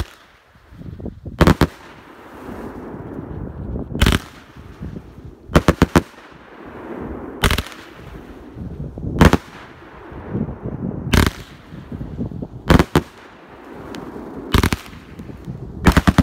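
A 25-shot 500-gram consumer firework cake firing: sharp, loud bangs about every one and a half to two seconds, some coming in quick doubles and triples, with a rushing noise from the shots between the bangs.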